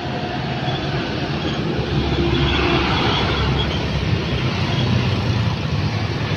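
Passing road traffic of trucks and motorbikes: a steady low engine rumble with tyre and road noise, growing louder about two seconds in as vehicles pass closer.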